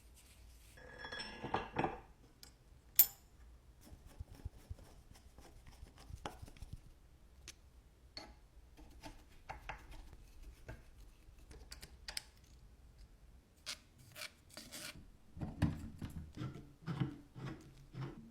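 Metal parts of a Wilton bench vise being handled and worked: scattered light clinks and taps. There is a short rubbing sound about a second in, one sharp click about three seconds in, and a busier run of knocks near the end.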